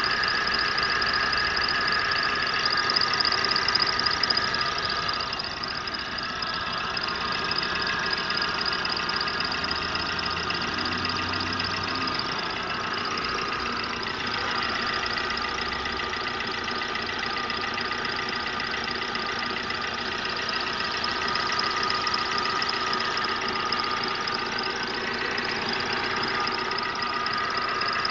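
Car engine idling steadily, with several high steady whines over a fast, even mechanical texture: a strange noise whose origin the owner does not know.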